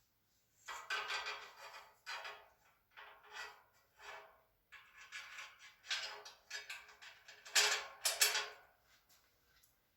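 Metal shelving parts and bolts clinking and rattling in a run of irregular bursts as screws and bolts are fitted by hand, the loudest clatter near the end.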